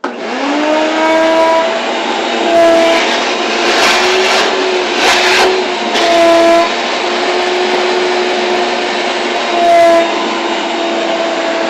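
Wet/dry vacuum switched on, spinning up to a steady whine over a loud rush of suction as it draws standing water out of a dishwasher tub that will not drain. The pitch shifts slightly now and then, with louder, noisier surges about four to five and a half seconds in.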